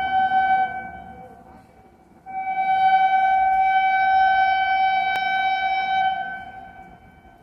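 Locomotive horn of the Karnataka Sampark Kranti Express, sounding one steady note in two long blasts. The first cuts off within the first second, and the second starts a little over two seconds in and is held about four seconds before fading.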